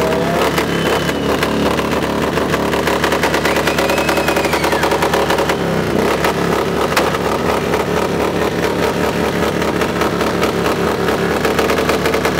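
Yamaha Star motorcycle engine revved hard and held at high revs, loud throughout, with a rapid pulsing beat.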